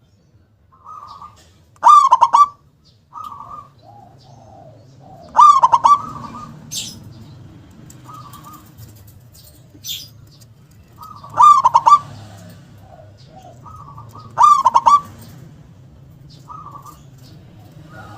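Zebra dove (perkutut) cooing: four loud, fast-stuttering calls a few seconds apart, with softer short coos between them and a faint low hum underneath.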